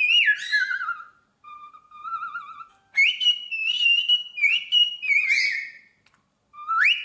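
Pet parrot whistling a string of clear notes, some held steady, some warbling and some sliding down in pitch, in three phrases with short pauses between.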